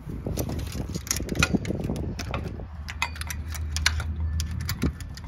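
Aluminium-framed solar panels being slid shut on drawer slides and their metal hook latches handled: a run of irregular sharp metallic clicks, knocks and light rattles over a steady low rumble.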